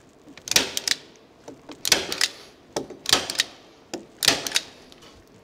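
Hand staple gun firing staples through the insulation blanket into the timber floor joists, four times about a second apart. Each firing is a quick snap of a few sharp clicks.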